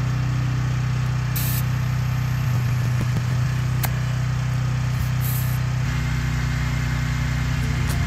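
A motor running steadily with a low, even hum, with two short hisses of air about one and a half and five seconds in.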